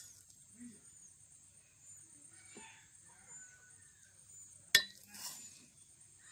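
A metal spoon scraping and scooping cooked biryani rice in an aluminium pot, with one sharp clink of spoon against the pot about three quarters of the way through. Chickens cluck faintly in the background.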